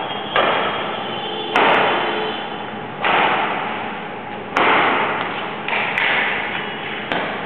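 Badminton rackets striking a shuttlecock in a rally: six sharp hits about every one and a half seconds, each echoing and dying away.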